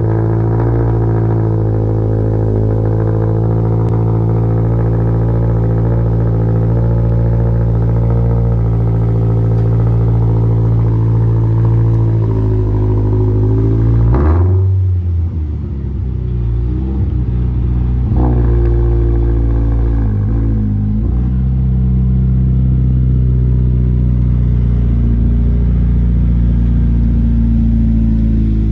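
2023 Toyota GR86's 2.4-litre flat-four running steadily through an RK Titanium dual-exit titanium exhaust. About halfway through the note shifts suddenly, a quick blip follows a few seconds later, and then it settles back to a steady run.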